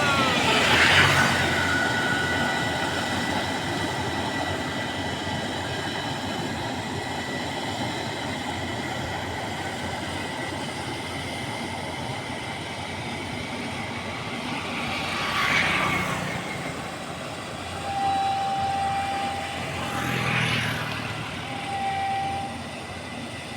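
Combine harvester running: a steady machinery din with several constant high whines, swelling louder three times. Near the end, a short mid-pitched tone repeats a few times.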